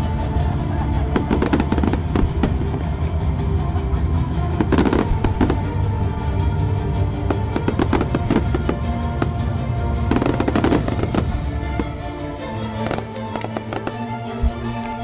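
Fireworks bursting and crackling in repeated clusters of bangs over a music soundtrack; the bangs thin out near the end while the music carries on.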